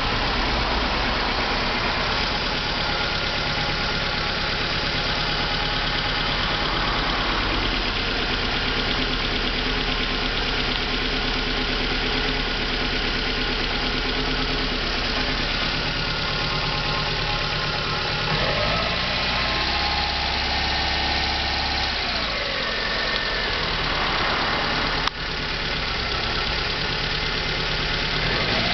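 Lancia Y's 1.2-litre 16-valve four-cylinder engine running with a strange noise that the owner is trying to show. About two-thirds of the way through the revs rise, hold for a few seconds, then drop back to idle, and a single sharp click comes near the end.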